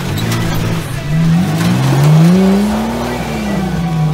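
Nissan Patrol 4x4 engine revving under load on a steep dirt climb. The revs rise to a peak about two seconds in, then fall away.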